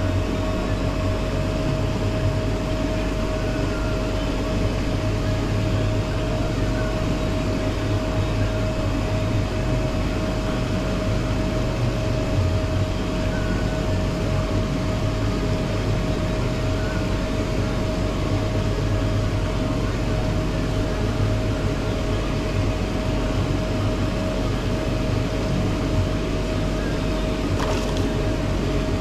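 Steady mechanical hum with a constant mid-pitched whine from the pond's aerators running and churning the water. The whine stops just before the end.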